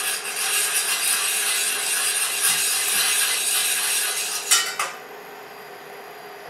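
A metal utensil stirring and scraping around a stainless-steel saucepan as sugar is stirred into cherry juice. The scraping stops about five seconds in with a couple of knocks of metal on the pot.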